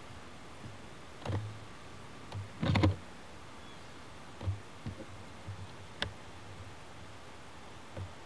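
Camcorder handling noise: scattered clicks and knocks with dull thumps over steady tape hiss. The loudest cluster comes about three seconds in, with a few single clicks after it.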